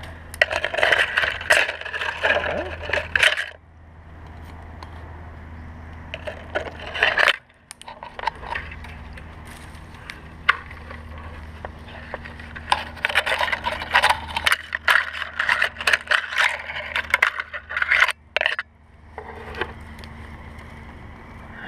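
Tree branches and twigs rustling and snapping as a climber pushes through a tree's branches, in two busy spells of crackling, the second longer, over a steady low hum.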